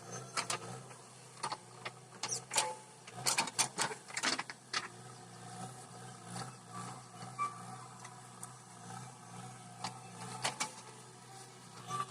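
Backhoe loader's diesel engine running steadily with a pulsing drone, under a string of sharp knocks and clanks that come thick in the first few seconds and again near the end.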